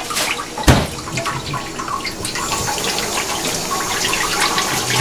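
Tap water running into a stainless-steel kitchen sink, with small splashes and clicks, a little stronger from about two seconds in. A single sharp knock, the loudest sound, comes just under a second in.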